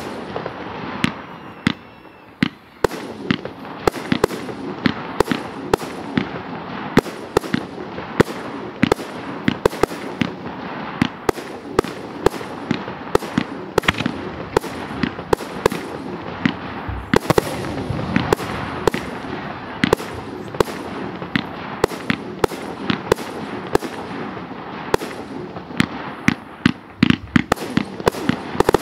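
Professional fireworks display of F3-class aerial shells and effects: a dense, continuous barrage of sharp bangs and cracks, several a second, easing briefly about two seconds in and again near the end.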